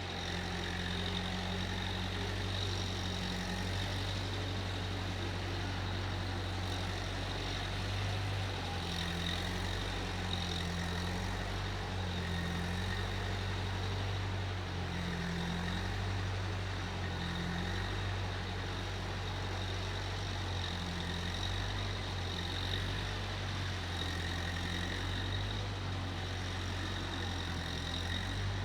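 Case 1530 Uni-Loader skid steer's engine running steadily at constant speed.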